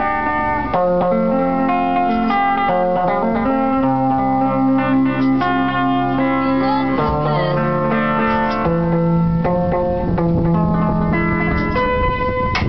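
Live guitar music with men singing: a guitar is played under long held sung notes.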